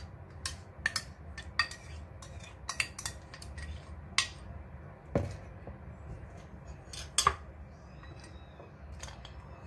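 A spoon scraping and tapping against a ceramic bowl and a glass bowl as yogurt is spooned from one into the other: a scattered series of light clinks and taps, with a louder knock about five seconds in and another about seven seconds in.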